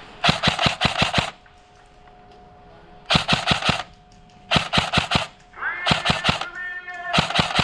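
Airsoft guns firing in five short bursts of rapid shots, about eight shots a second. A pitched tone with overtones slides up and holds about six seconds in, over a faint steady hum.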